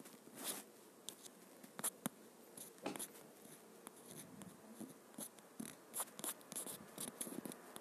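Faint, irregular clicks and taps from a smartphone being handled, with fingers tapping and swiping on its touchscreen, picked up by the phone's own microphone.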